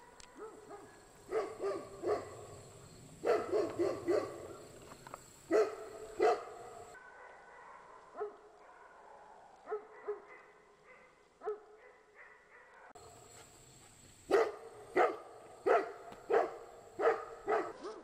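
Maremma sheepdog barking in irregular bursts with pauses between them, then a quick run of about seven barks near the end. The uploader takes it for nuisance barking at nothing.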